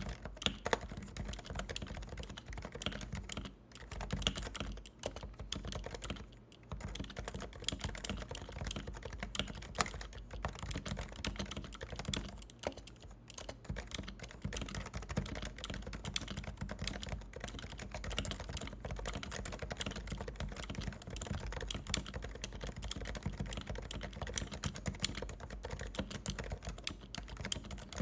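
Fast, continuous typing on a Realforce 87U SE170S keyboard with silenced Topre electro-capacitive switches, giving a dense stream of soft key clicks. There are short pauses about 4, 6.5 and 13 seconds in.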